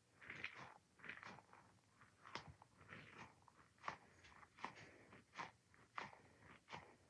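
Squishy ball being squeezed over and over, giving short, faint crackling squishes about one or two a second.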